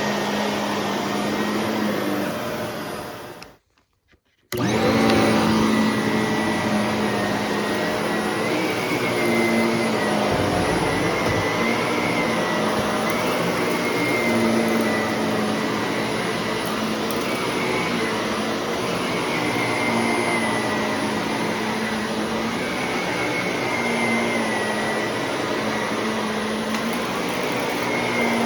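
Shark vacuum cleaner running steadily, its motor tone wavering slightly. About three seconds in, the sound fades away for about a second, then comes back abruptly.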